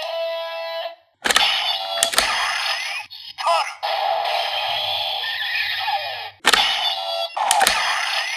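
Electronic sound effects from a DX Lost Driver toy transformation belt with a T2 Gaia Memory. A looping standby tune cuts off about a second in, then loud sharp plastic clicks sound twice in quick succession. A burst of electronic transformation effects with rising glides follows, and two more sharp clicks come near the end.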